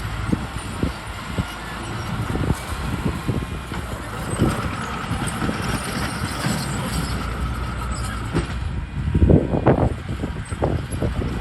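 Heavy earthmoving machinery running with a steady low engine rumble and irregular knocks and clunks, louder for a stretch about nine to ten seconds in.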